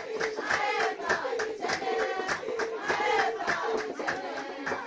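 A group of women singing together to steady, rhythmic hand clapping.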